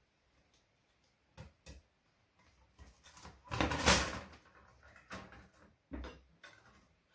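Coiled copper-nickel brake pipe being handled on a wooden worktop: a few light knocks, and a scraping, rustling stretch in the middle that is loudest about four seconds in.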